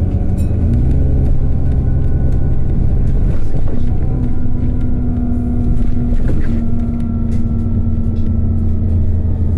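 Cummins ISB 6.7 diesel engine and ZF Ecolife six-speed automatic of an Alexander Dennis Enviro400 double-decker bus running under way, a deep steady rumble with a whine that shifts in pitch a few times. Light clicks and rattles come through now and then.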